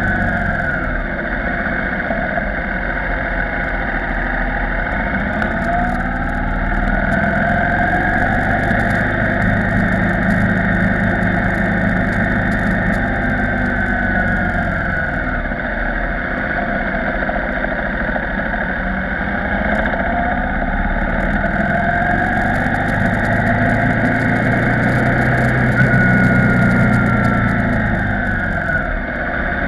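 KTM 990 Supermoto R's LC8 V-twin engine running on a winding mountain road, its pitch rising and falling several times as the bike speeds up and slows through the bends, over a steady rush of wind.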